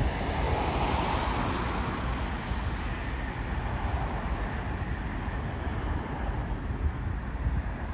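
Road traffic going by, one vehicle swelling up and fading in the first couple of seconds, with wind rumbling on the microphone.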